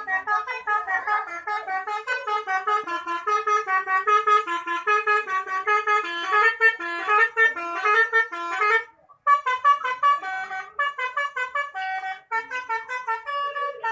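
Bus telolet horn playing a fast tune of short stepped notes, cutting out briefly about nine seconds in before the tune carries on.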